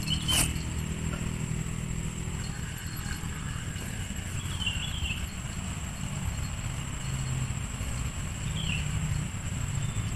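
Steady low motor rumble with a constant thin high whine above it. There is a short click just after the start, and two brief high chirps, one near the middle and one later.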